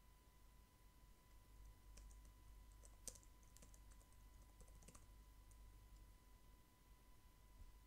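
Faint typing on a computer keyboard: a quick run of keystroke clicks lasting about three seconds, starting about two seconds in, over a low steady hum.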